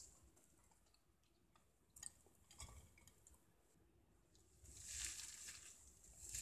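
Faint squishing and crinkling of a rubber-gloved hand mashing cooked shrimp and mixing in chopped raw onion on a plate, with a few soft clicks midway and growing louder near the end.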